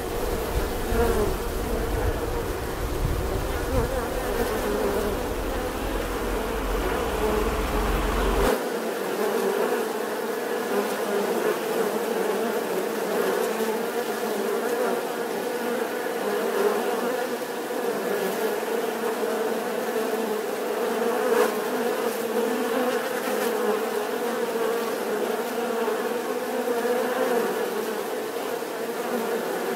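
Many honeybees buzzing together in a continuous, steady drone. A low rumble underneath cuts off abruptly about eight seconds in, while the buzzing carries on.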